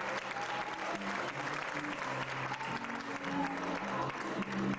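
Congregation applauding over music with sustained low chords.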